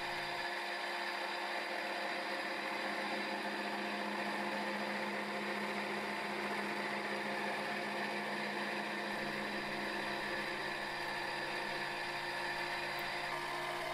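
Milling machine running with a steady hum, its spindle turning a home-made form-relieved gear cutter that cuts teeth into a gear blank.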